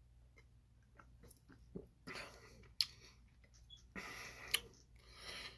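Mouth sounds of a man drinking iced coffee: small gulps and mouth clicks, then two breathy exhales, each with a sharp lip smack.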